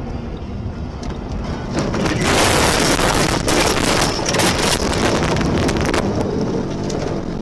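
Car's tyre and road rumble. About two seconds in it gives way to a loud rushing hiss with rapid clatter as the car ploughs into deep snow and snow sprays over the windshield and body. This lasts about four seconds, then settles back to a rumble.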